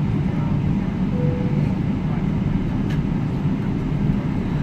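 Steady low rumbling drone inside the cabin of a Boeing 777-300 airliner rolling slowly on the ground, with a faint tick around three seconds in.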